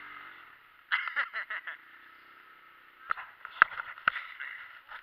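Sled scraping and bouncing over snow while towed behind a four-wheeler: a steady hiss with clusters of sharp knocks about one second in and again three to four seconds in. The four-wheeler's engine hums faintly in between.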